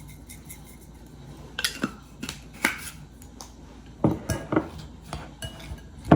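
Utensil clinking and knocking against a bowl while a chopped salad is mixed: a string of irregular light knocks.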